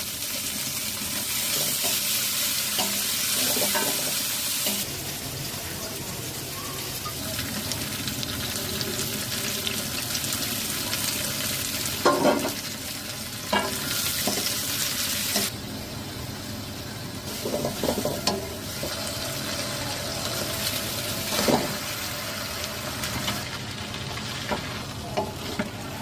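Food sizzling in a hot pan while a utensil stirs it, with the hiss louder near the start and again about halfway. A few sharper knocks of the utensil against the pan come in the middle.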